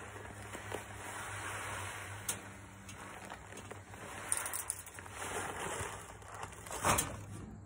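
Seed pouring from a sack into an Earthway 2750 spreader's hopper through a cut-off plastic water jug, a steady hiss of grains for the first four seconds or so. A few light clicks follow, then a single sharp bump as the sack is handled, near the end.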